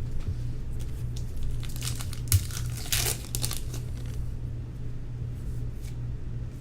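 Trading cards and their pack wrappers being handled: crinkling and tearing sounds, busiest from about two to three and a half seconds in, over a steady low hum.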